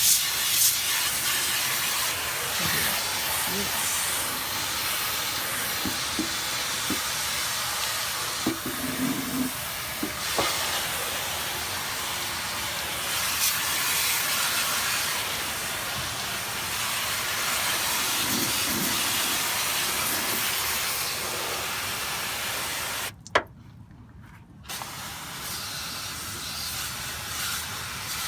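Water hissing steadily from an electric pressure washer's spray wand into a car's wheel well, with the pump switched off so only garden-hose pressure comes through and no motor runs. Near the end the spray stops briefly with a click, then starts again a little quieter.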